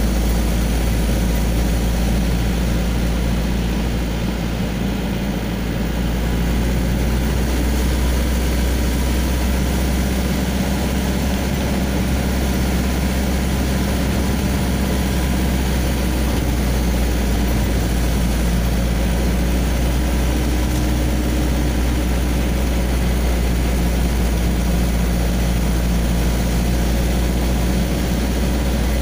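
Vehicle engine running steadily while driving, heard from inside the cab as a loud, even low drone.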